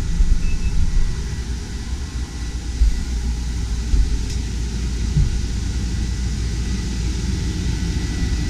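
Mabru self-contained marine air conditioner running in cooling mode with its compartment open: a steady rush of blower air over a low hum, with a faint steady high tone and a few dull low knocks.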